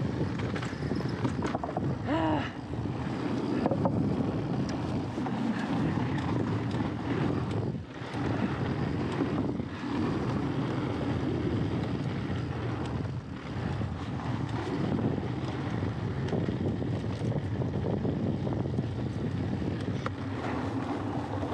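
Wind buffeting the rider's camera microphone over the steady rumble of mountain bike tyres rolling along wooden boardwalk planks.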